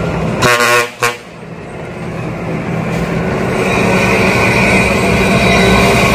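Truck horn giving two toots: the first about half a second long, the second very brief. Then a truck engine running and growing steadily louder over the next few seconds, joined by a steady high whine.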